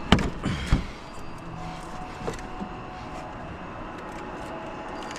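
Fasteners of a plastic engine-bay cover being worked loose by hand: a few sharp clicks and knocks in the first second, then only quiet handling.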